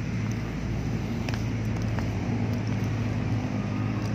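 Steady low rumble and hum of running engines, like city traffic, with a few faint ticks.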